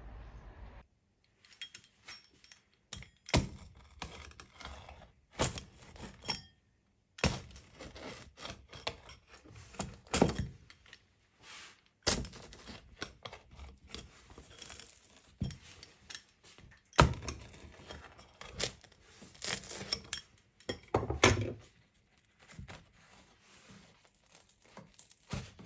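A crisp-based pizza being cut on a wooden board: the crust crackles and tears, with irregular sharp knocks and scrapes of the blade against the board.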